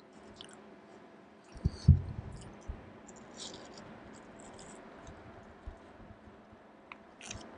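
A patient sipping water and swallowing: a scatter of short, faint sipping and mouth clicks, with a low thump about two seconds in.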